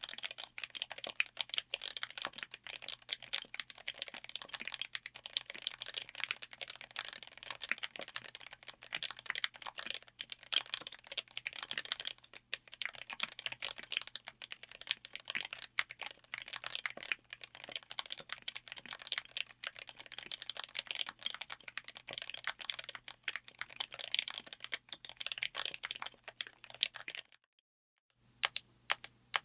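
Rapid, continuous typing on a mechanical keyboard built on an FR4 plate in an aluminium case, with dense overlapping keystroke clacks. Near the end the typing stops briefly, then single keystrokes follow at an even, slower pace.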